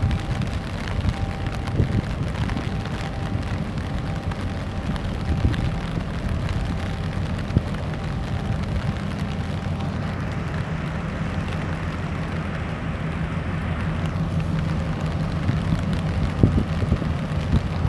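Low, steady engine drone from a large container ship passing slowly near the shore, mixed with a rushing haze of wind and rain noise.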